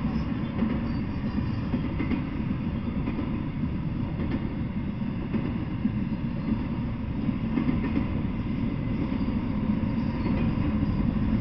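Intermodal freight train passing, flatcars loaded with semi-trailers: a steady low rumble of wheels on rail with a few faint clicks, heard through a trail camera's small microphone.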